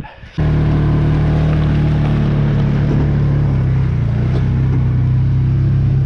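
Polaris Ranger 570 UTV's single-cylinder engine running steadily under load while driving and towing a log arch, heard from the driver's seat. It cuts in abruptly about half a second in, then holds a steady hum at an even pitch.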